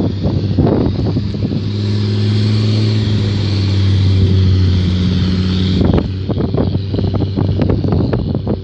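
Land Rover Defender's engine running steadily under heavy load, towing through soft sand, its note sagging slightly in pitch. About six seconds in, the steady note breaks up into choppy, knocking noise.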